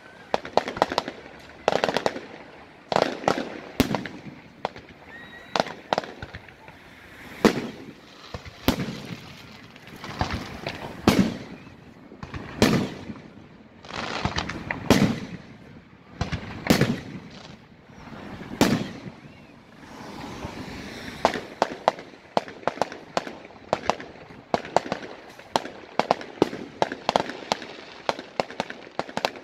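Aerial fireworks display: shells bursting with sharp bangs, the larger ones about two seconds apart through the middle, then quick strings of pops in the last third.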